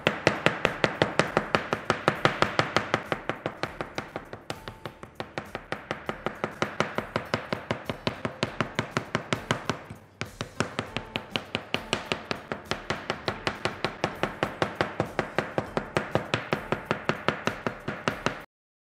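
Kitchen knife chopping and pounding roasted eggplant on a plastic cutting board: a fast, steady run of knocks, about four or five a second, with a short break about ten seconds in. It stops abruptly near the end.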